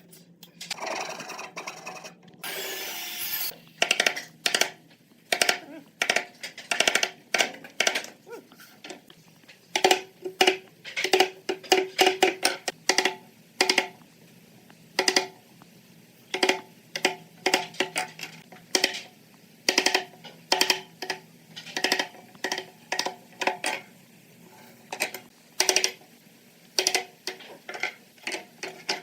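Hammering on wood: irregular sharp knocks, two or three a second, each with a short ringing tone. It runs in uneven bursts, after a few seconds of a whirring, hissing machine sound at the start.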